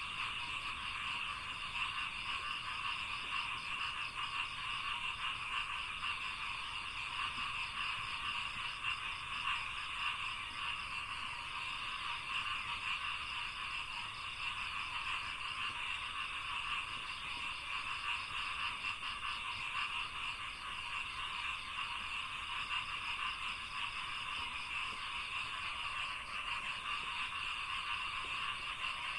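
A dense chorus of many frogs calling at once, a steady unbroken mass of calls with no single voice standing out, and a thin, steady, high-pitched tone above it.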